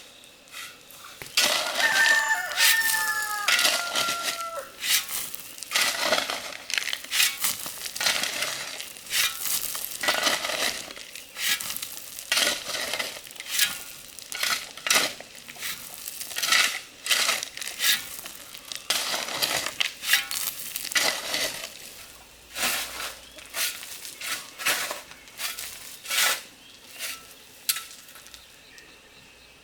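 A rooster crows once, about a second and a half in, over a long irregular run of sharp clicks and rustling knocks that thins out near the end.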